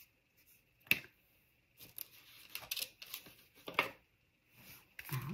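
Hands handling craft supplies on a table: a sharp click about a second in, then light, scattered rustling and tapping.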